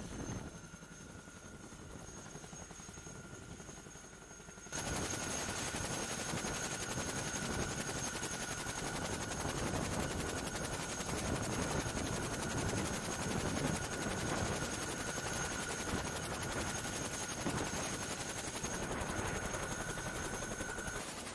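Boeing CH-47 Chinook running on the ground with its tandem rotors turning: a rapid, steady rotor chop under a constant high turbine whine. It is quieter for the first few seconds, then much louder and closer from about five seconds in.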